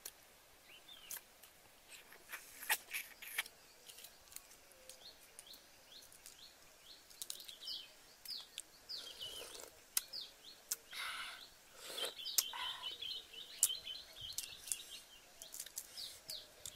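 Wild birds chirping, with many short downward-sliding calls and a fast trill in the second half, over sharp small clicks and crackles of a boiled duck egg's shell being cracked and peeled by hand.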